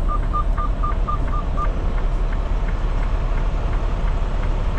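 Semi-truck engine idling with a steady low rumble, under a rapid electronic beeping of about four beeps a second that stops about a second and a half in.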